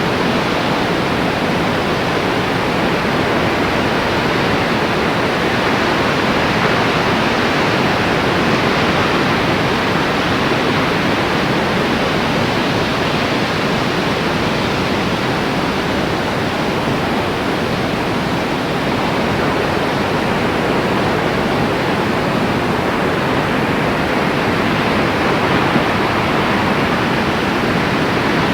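Loud, steady rushing noise that holds unchanged throughout, with no distinct events in it.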